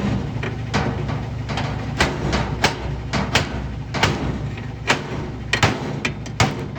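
Metal bar knocking and clanking against the washer's sheet-metal panel as it is pried away from the tub, the panel the tub had been scraping on. There are about a dozen sharp, irregular knocks over a steady low hum.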